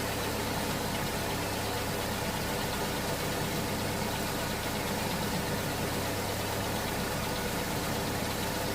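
Nissan Almera HR15 1.5-litre four-cylinder engine idling steadily in park while the transmission fluid is circulated and topped up.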